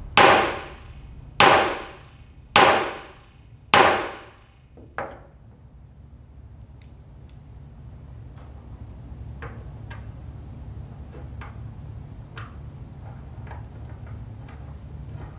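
Heavy blows from a wooden mallet: four loud, ringing strikes about a second apart, then a lighter fifth. After that come faint, scattered clicks as small metal cubes are set down on the wooden table.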